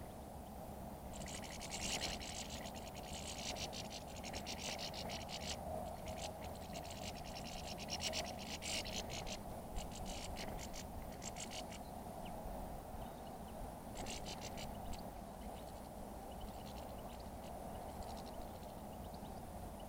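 Wild birds feeding on sunflower seeds and peanuts, with long runs of rapid, scratchy clicking over a steady low background hum.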